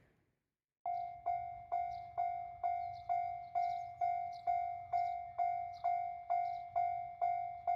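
Japanese railroad crossing alarm ringing its repeated 'kan kan' bell. The strikes come about two a second at one steady pitch, each fading before the next. It starts suddenly about a second in.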